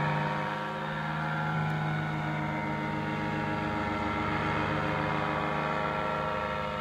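Paramotor engine and propeller running steadily in flight, an even drone that holds one pitch.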